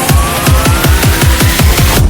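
Electronic dance music with a fast, pounding kick drum, about four to five beats a second, and a thin synth tone rising in pitch.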